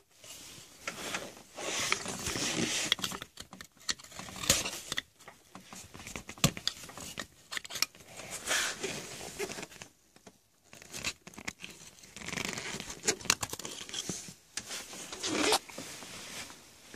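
Plastic sheeting crinkling and rustling as hands work through it, with scattered short clicks and scrapes.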